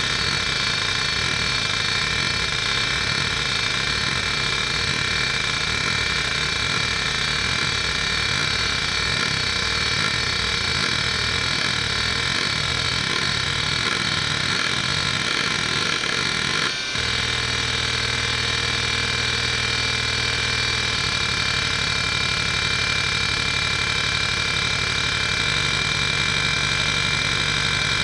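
Conner Peripherals CFS850A 3.5-inch hard drive (3600 rpm) running a seek test. Its head actuator makes a loud, continuous buzzing chatter as it seeks back and forth, over a steady high whine. About 17 seconds in the seeking stops for a moment and starts again in a new, more even rhythm.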